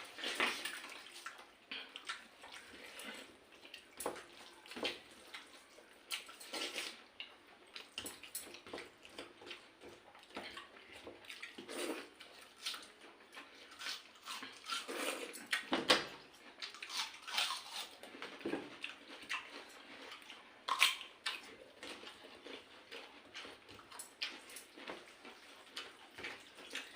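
Wet eating sounds: water-soaked rice being squished and scooped by hand, with slurping, chewing and small splashes coming irregularly.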